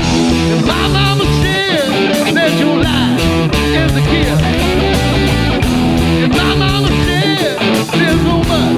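Rock band music: a guitar lead with bending notes about a second and a half in and again near the end, over bass and a steady drum beat.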